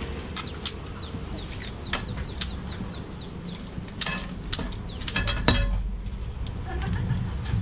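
A quick run of short, high, falling chirps, then scattered sharp clicks and clatter of containers and utensils being handled, over a steady low background hum.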